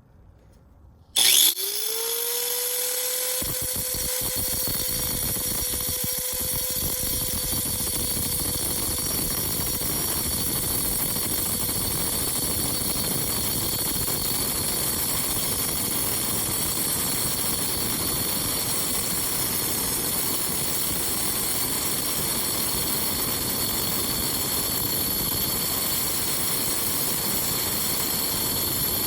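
Angle grinder switched on about a second in, its whine rising quickly to a steady pitch. About two seconds later the blade bites into the quartz geode, and a steady grinding of the cutting disc through the rock runs on from there.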